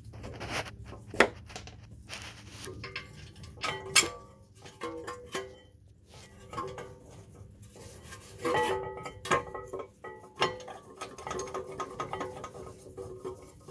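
Metallic clinks, taps and scrapes as a steel brake caliper bracket and its bolts are worked into place over a new brake rotor. A few sharp clanks stand out, some leaving a short metallic ring.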